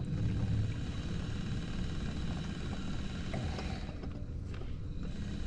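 Electric trolling motor of an inflatable boat running steadily as the boat backs up: a low rumble with a faint high whine.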